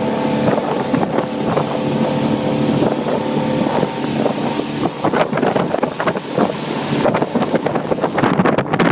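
Motorboat engine running at a steady hum, with wind buffeting the microphone. About halfway through, the engine's tone fades under louder, gusty wind noise.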